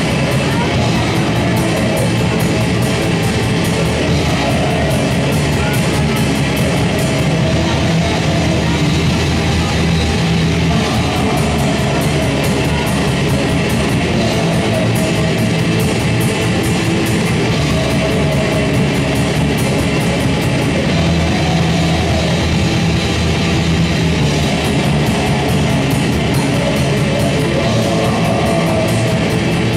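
Live band playing loud heavy rock: electric guitars and a drum kit, with fast, closely spaced drum and cymbal hits, steady throughout.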